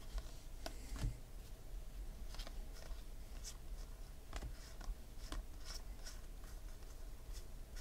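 Glossy Topps Gold Label baseball cards handled and sorted by hand: faint, irregular flicks and slides of card against card.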